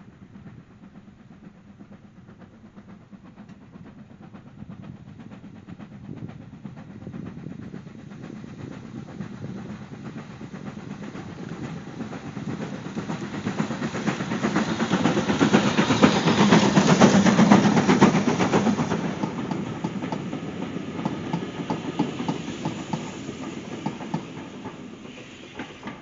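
A BR Standard Class 4MT tank steam locomotive working a train of coaches, its exhaust and running noise growing steadily louder as it approaches. It is loudest about two-thirds of the way through as it passes close by. The coaches then roll past with regular clicking over the rail joints, fading away.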